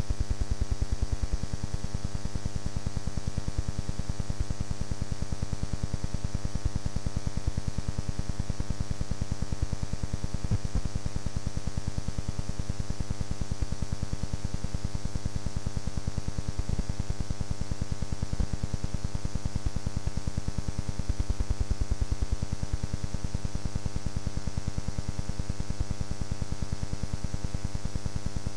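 Steady electrical buzz: mains hum with many overtones, over a faint hiss.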